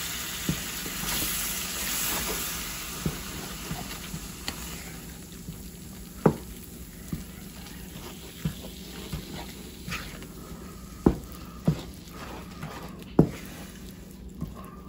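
Tomato paste and curry spices sizzling in hot oil in a frying pan while being stirred with a wooden spoon, which knocks and scrapes against the pan every second or so. The sizzle is strongest in the first few seconds and then dies down.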